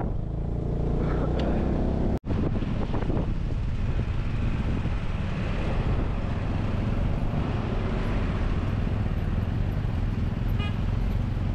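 Motorcycle running at road speed, a steady engine hum mixed with wind and road noise, with a brief drop-out about two seconds in.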